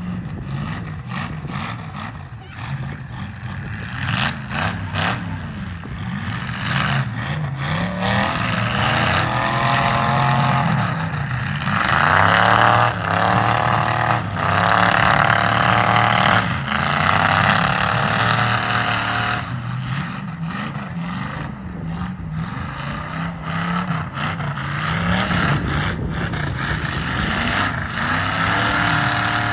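Several demolition derby car engines revving up and down over one another, with scattered bangs. The revving is loudest about midway through.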